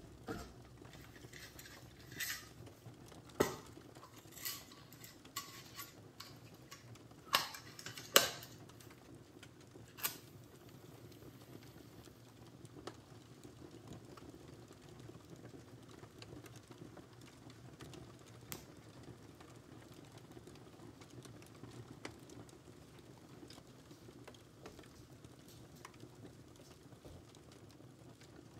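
A matchbox handled and a match struck: a run of sharp scrapes and clicks over the first ten seconds, the loudest about eight seconds in. After that only a faint steady hush of room tone.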